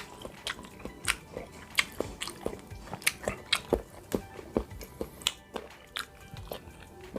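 Close-miked chewing of bakso meatballs and rice: irregular wet mouth clicks and smacks, a few each second.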